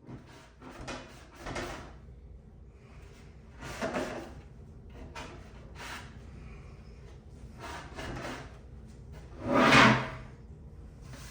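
Wooden drawer parts being handled and fitted together during glue-up: a string of short knocks and scrapes of wood on wood, the loudest a longer scraping knock near the end.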